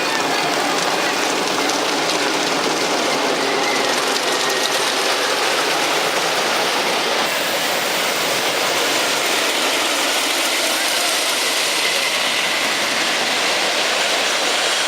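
The Beast wooden roller coaster's train running along its track: a steady, loud rattle and rush.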